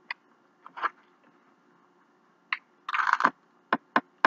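A person eating with a metal utensil: scattered sharp clicks of the utensil on the dish and against the teeth, and a short noisy burst of scraping and biting about three seconds in.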